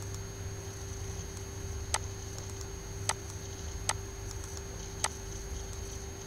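Four sharp computer mouse clicks, roughly a second apart, over a steady low hum.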